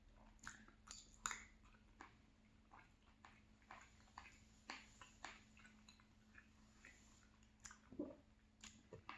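Faint close-miked chewing of soft salmon pie, scattered small wet clicks of the mouth several times a second.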